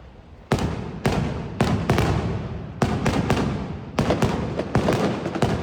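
Fireworks going off outside in a rapid string of sharp bangs, about two to three a second, each followed by a short rumbling tail, starting about half a second in.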